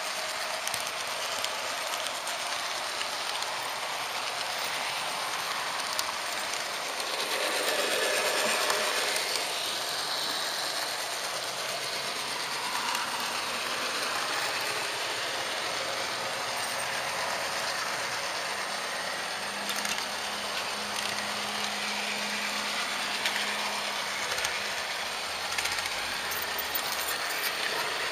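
Märklin HO-scale model train running along the track, a steady rattling clatter of small wheels on metal rails, a little louder for a few seconds about eight seconds in.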